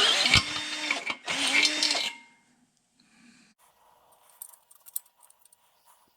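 Electric drill boring through the truck's sheet-metal floorboard in two loud runs, its motor pitch rising and falling, the second run stopping about two seconds in. Faint clicks and rattles follow.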